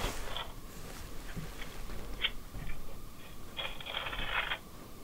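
Scattered faint clicks and handling rustles, then, near the end, about a second of thin, scratchy noise from a baby monitor's small speaker, which relays sound from the attic.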